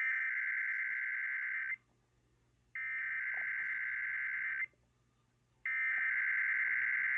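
Emergency Alert System SAME header: three bursts of digital data tones, each just under two seconds long and about a second apart. This is the machine-readable code that opens an EAS alert or test.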